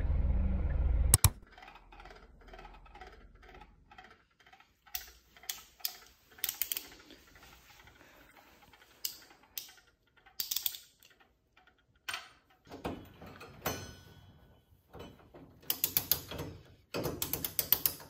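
About a second of low car-cabin road rumble that cuts off abruptly, then the small clicks and rattles of a hand screwdriver and its bit set being handled. Near the end come quick runs of ratchet clicks as screws are driven into the TV's stand-mounting bracket.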